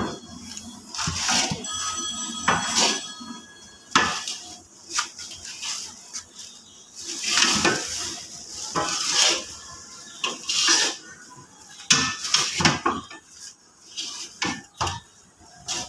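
A long-handled metal scraper stirring a stiff mix of lac and abrasive grit in a large metal wok (kadai): repeated gritty scrapes and clanks against the pan, in irregular strokes roughly once a second.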